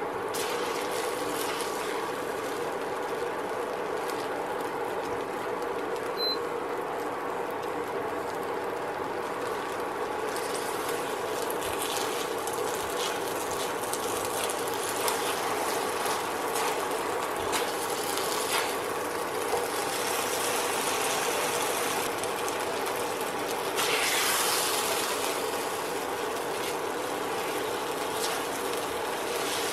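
Egg frying in oil in a non-stick frying pan: a steady crackling sizzle over a steady hum, with a nylon spatula scraping and pressing the egg now and then. The sizzle swells briefly about four-fifths of the way through.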